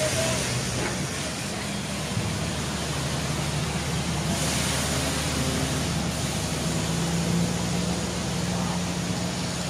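City street traffic: engines of cars and motorbikes running over a steady hiss of road noise, swelling briefly about four seconds in.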